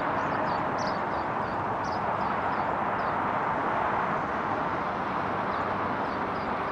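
Steady outdoor background noise, an even hiss-like hum, picked up through a Boya BY-MM1 microphone on a phone. Faint high chirps repeat in the first couple of seconds.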